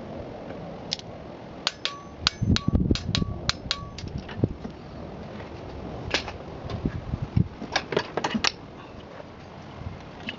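Ratchet wrench on a long chrome extension working a spark plug in the plug well of an Audi 3.0 V6. It makes sharp metallic clicks, a run of about eight between two and four seconds in and another cluster near eight seconds, some with a short metallic ring, with a few dull knocks of the tool against the engine.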